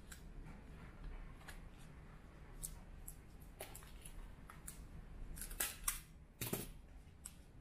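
Banana leaf rustling and a handheld stapler clicking shut a few times to fasten a leaf wrapper, with the loudest clicks a little past halfway.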